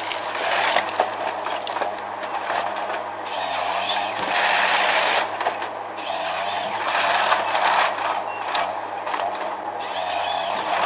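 Heavy forestry machinery working: a steady engine hum under irregular loud bursts of rushing noise, each lasting a second or two, with scattered clicks and knocks.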